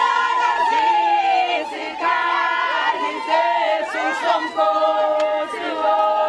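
A group of Zulu women singing together unaccompanied in a ceremonial song, several voices holding long, slightly wavering notes and moving into new phrases twice.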